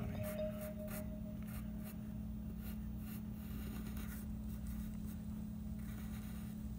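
Graphite drawing pencil scratching across paper in many short strokes, over a low steady hum.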